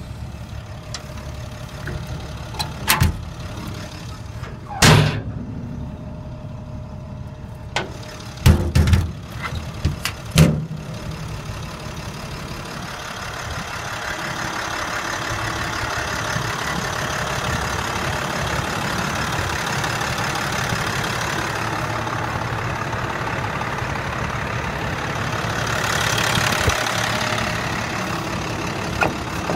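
International 4400 truck's DT466 turbo-diesel inline-six idling steadily. There are several sharp knocks in the first ten seconds, and a hiss swells over the second half.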